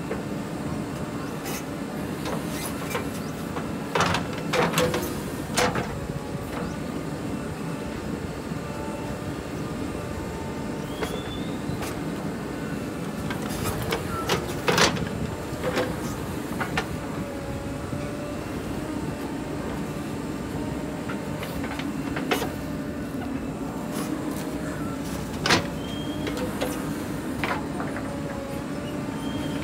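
JCB 3DX backhoe loader's diesel engine running steadily under work, with a faint whine and a few sharp metallic clanks, a cluster of them about four to six seconds in and single ones later.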